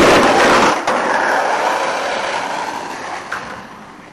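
Skateboard wheels rolling on rough concrete pavement, loud at first, with a change about a second in, then fading away steadily.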